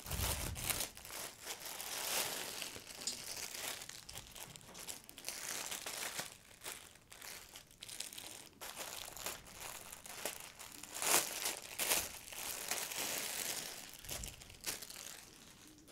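Clear plastic clothing bag crinkling as it is handled and opened to take out a knit baby garment, with irregular crackles and a few louder ones about eleven and twelve seconds in.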